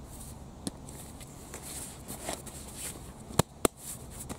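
Camping gear being handled in a carry wagon: a rolled canvas tent and its straps shifting, with light knocks and two sharp clicks in quick succession about three and a half seconds in.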